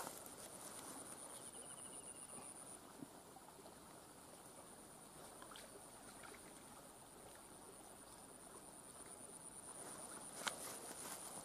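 Faint outdoor ambience: a steady high-pitched insect buzz that fades down for a while in the middle and comes back near the end, with a light click about ten seconds in.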